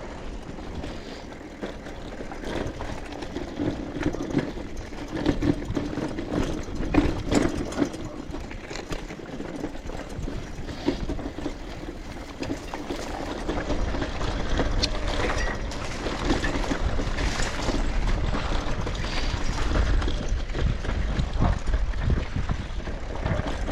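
A bicycle rolling along with rattling and clicking over the bumps, and wind rumbling on the microphone, which grows louder about halfway through.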